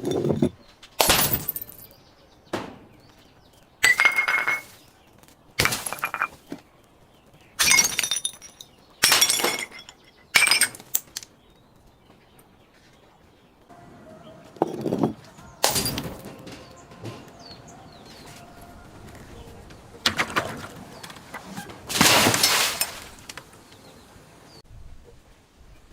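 Glass bottles breaking and being crushed: a run of sharp crashes with tinkling shards, one every second or two. After a short pause come a few more crunching breaks over a faint steady hum.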